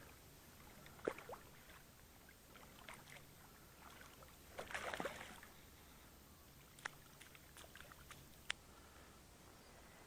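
A hooked trout splashing and thrashing in shallow water as it is drawn in to the shore. There is a sharp splash about a second in, a longer burst of splashing around five seconds in, and a few lighter slaps later.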